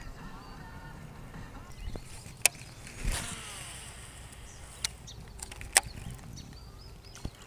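A few sharp, separate clicks and knocks of fishing tackle and gear on a boat. About three seconds in there is a brief rushing whoosh. A low steady rumble runs underneath.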